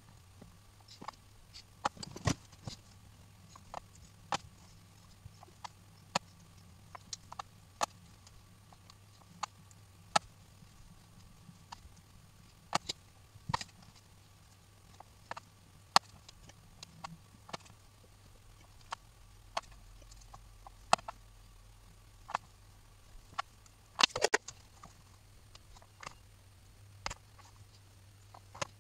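Light, irregular clicks and taps, about one every second or so with a small flurry near the end: small metal accordion reed plates being picked up and set down on a cutting mat as leather valves are glued onto them. A faint steady low hum sits underneath.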